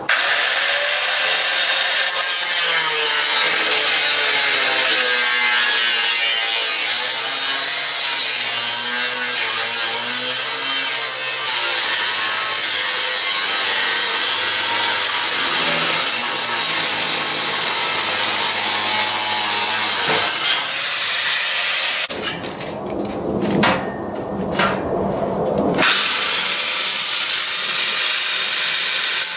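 Handheld power grinder working metal. Its motor whines up to speed, grinds steadily under load for about twenty seconds, then winds down. After a few seconds of lower, uneven scraping it spins up again near the end.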